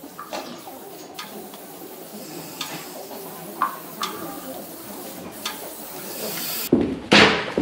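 Steady hiss with scattered light knocks and clicks from an actor moving about a stage among metal cabinets, stools and bowls, then a loud, noisy clatter near the end.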